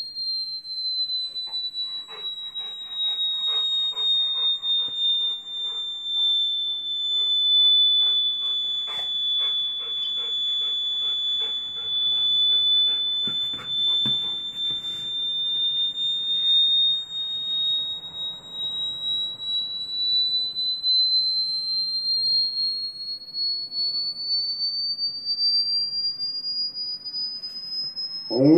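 A high-frequency test tone played through a TV: one loud, steady whistle-like pure tone that sags slightly in pitch over the first ten seconds, then climbs slowly and steadily higher toward the end. Fainter rapid clicks sound beneath it during the first half.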